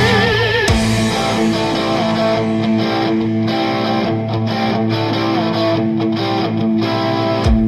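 Background rock music led by electric guitar. A held note wavering with vibrato ends about a second in, then sustained chords ring on under a steady beat.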